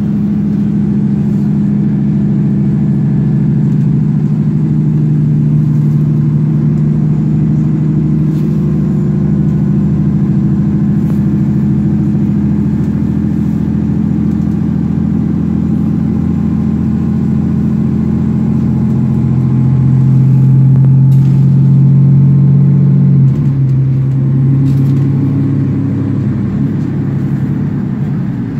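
Cummins ISL inline-six diesel engine of a 2009 Nova Bus LFS running steadily under way, heard from inside the bus. The engine note grows a little louder, then drops suddenly about three-quarters of the way through.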